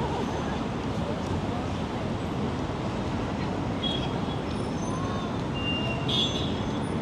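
Steady city street traffic noise, with faint voices and a few short high-pitched tones in the second half.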